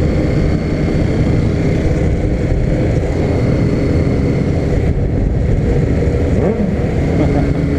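Honda CB300 single-cylinder motorcycle engine running steadily under way, with the sound of the group's other motorcycles around it.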